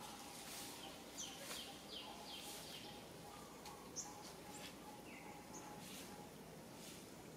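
Faint outdoor ambience with short, high, downward-sliding bird chirps, several in quick succession in the first few seconds and then single ones, with a few soft ticks.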